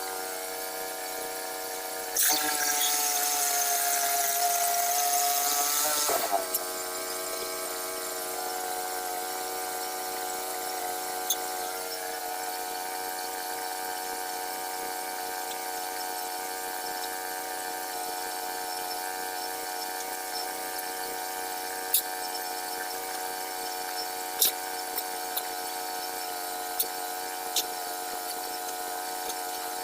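HM122 portable sawmill's engine running steadily. For about four seconds near the start it is louder with the blade cutting, its pitch sagging under load and climbing back as the cut ends; a few sharp ticks follow.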